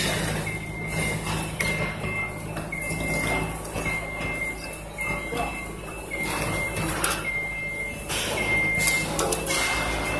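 Reversing or motion alarm beeping, short high beeps about once a second, over the steady drone of a diesel engine running.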